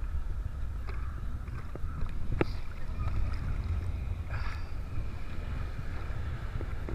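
Low rumble of wind and surf water buffeting a camera held at the water surface, with a few small splashes and knocks against it.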